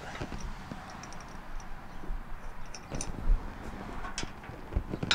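Scattered light clicks and knocks of bolts and metal mower-deck parts being handled and lined up by hand, with one louder knock about three seconds in.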